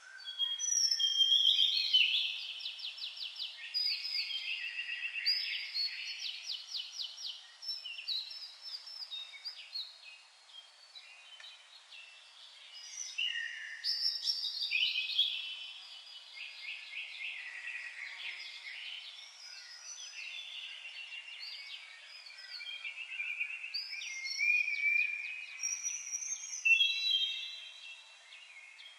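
Songbirds singing, a continuous chorus of varied whistled phrases and fast trills that starts abruptly and swells louder a few times.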